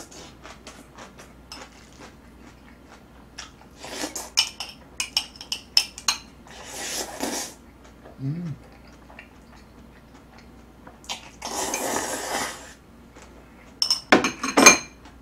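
Eating noises: metal tongs clinking and scraping against a bowl in quick clusters of clicks, and twice a longer rushing noise as jajangmyeon noodles are slurped.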